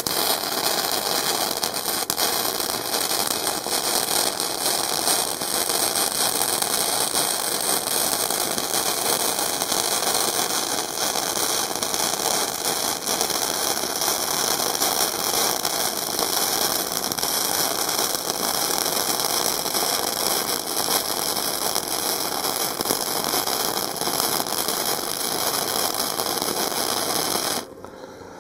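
Harbor Freight flux-core wire-feed welder arc running one continuous bead on thicker steel plate: a steady crackling sizzle that cuts off shortly before the end.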